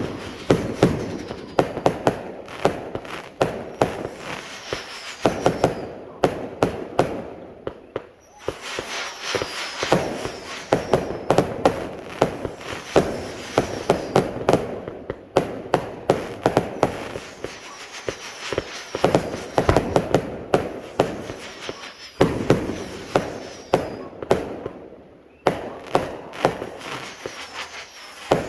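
A 144-shot firework cake firing in rapid volleys: sharp shots and aerial breaks bang several times a second, with short lulls between volleys.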